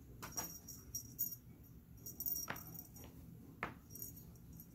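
Light metallic jingling in short repeated shakes, with a few sharp clicks spread through it.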